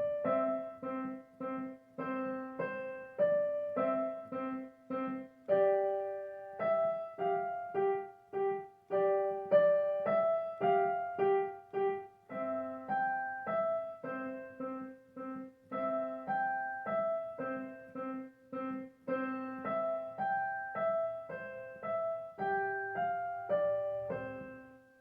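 Piano playing a simple, moderately paced melody one note at a time over left-hand I and V chords that are held or struck in rhythm; it closes on a held final chord that dies away.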